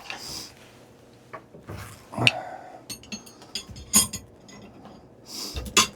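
A few sharp clicks and taps of a small stone point and knapping tools being handled, the clearest about two seconds in and near the end, with a couple of soft swishes.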